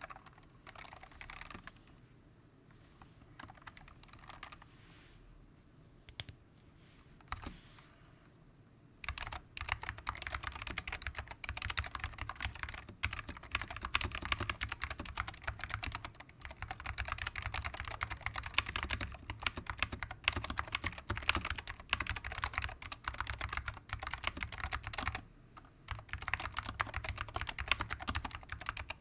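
Typing on a custom 60% keyboard with Alps SKCM Salmon switches, dry-lubed, in a plastic case. A few separate keystrokes at first, then fast continuous typing from about nine seconds in, with a brief pause near the end.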